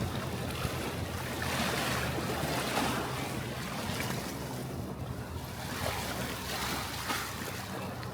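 Sea surf washing against shore rocks in slow swells, with wind buffeting the microphone and a low steady hum underneath.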